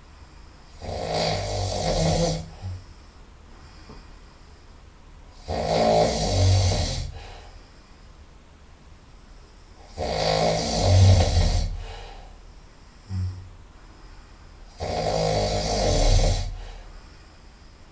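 A person snoring loudly through the nose, four long snores about four to five seconds apart.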